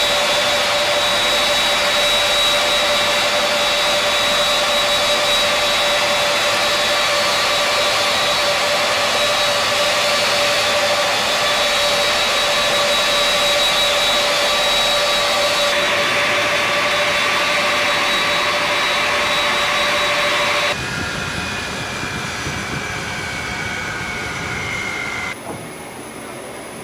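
Steady jet turbine whine around a parked Lockheed C-5A Galaxy: a loud rush of air with several high, unchanging whistling tones. About three-quarters of the way through it drops in level and a slowly falling whine follows, then it gets quieter again near the end.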